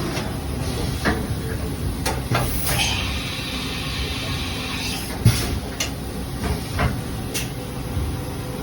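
Haas EC-300 horizontal machining center running: a steady machine hum, a spell of air hiss lasting about two seconds, and several sharp clicks and clunks.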